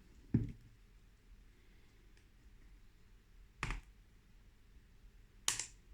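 Three sharp plastic snaps as a Kindle Fire 8th-gen tablet's frame is pressed down into its retaining clips: a small click right at the start, then two louder ones about three and two seconds apart.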